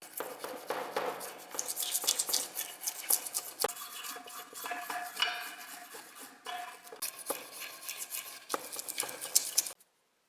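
Metal scraping and clinking from hand work on rusty pump pliers: rapid scratchy strokes with some ringing. It cuts off abruptly near the end.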